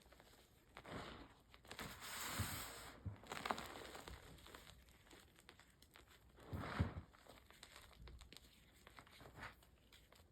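Reformed gym chalk crushed and crumbled by hand, with crunchy cracks and powdery crumbling in several short bursts. The loudest bursts come about two to three seconds in and again about seven seconds in.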